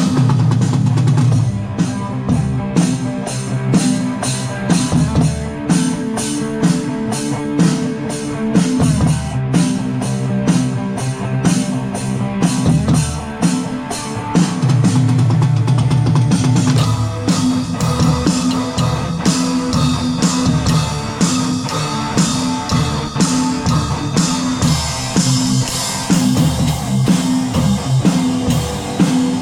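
Live rock jam: a drum kit beating out a steady groove under a repeating guitar riff. The cymbals get brighter and louder about halfway through.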